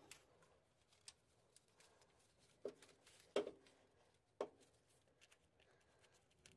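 Faint clicks and taps of small metal parts being handled by hand at a starter solenoid's terminal studs: a wire terminal, lock washer and nut being fitted. Otherwise near silence, with the three loudest clicks about a second apart in the middle.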